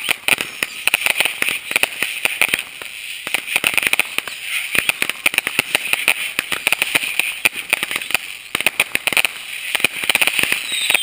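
Aerial fireworks going off: a dense, irregular run of bangs and pops with continuous crackling from the bursting stars.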